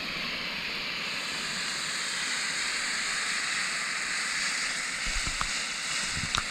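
Firework fountain burning with a steady hiss, with a few small pops near the end.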